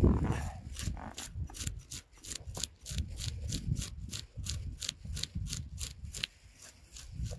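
A knife scraping the scales off a pike: quick repeated scraping strokes, about four or five a second, with short pauses, over a low rumble.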